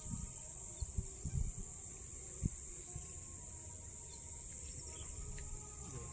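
Steady high-pitched chorus of insects, with a few dull low thumps in the first two and a half seconds.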